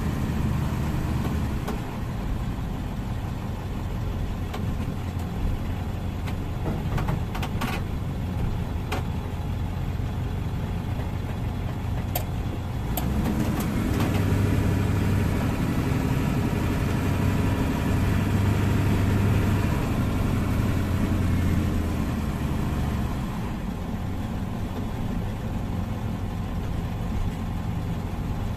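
Car engine and tyre noise heard from inside the cabin as the car drives slowly, a steady low hum. It swells a little about halfway through and eases off near the end, with a few faint clicks in between.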